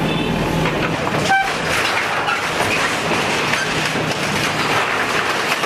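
JCB 3DX backhoe loader's diesel engine running while its bucket rips apart corrugated iron sheeting and timber, with steady metal rattling and scraping. A single sharp metallic clang rings out about a second and a half in.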